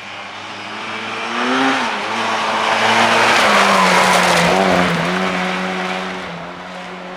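Rally car passing at speed: the engine note and tyre noise build to a peak about three to four seconds in, then fade as it goes away. The engine pitch rises and falls with gear changes, dipping and recovering again around five seconds in.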